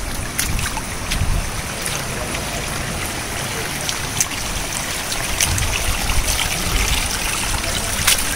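Surf washing onto a sandy beach: a steady rush of small waves breaking and running up the shore.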